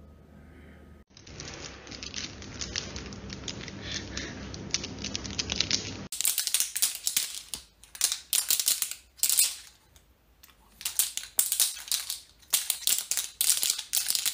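Oil sizzling and crackling in a frying pan for about five seconds. Then, after a cut, irregular bursts of crinkling and rustling as crumpled material is handled.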